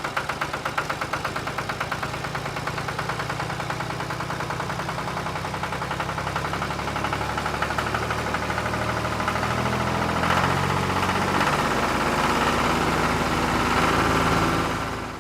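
Small engine of a miniature model tractor running with a rapid, even chugging. It grows a little louder over the last few seconds, then fades just before the end.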